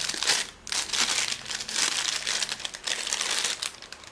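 Thin clear plastic sleeve crinkling as a pair of sunglasses is pulled out of it, in several crackly bursts with a short break about half a second in, stopping shortly before the end.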